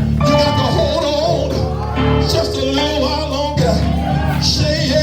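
Church music: sustained keyboard chords with a voice singing over them.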